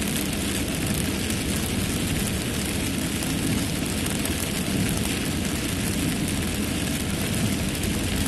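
Heavy rain falling on a moving car, with tyres hissing on the waterlogged road and the engine running underneath: a steady, unbroken roar heard from inside the cabin.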